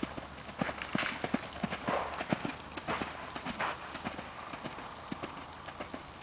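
Hoofbeats of a Morgan x Clydesdale cross cantering on arena sand, a quick run of dull thuds in the rhythm of the stride, fading somewhat in the second half as the horse moves away.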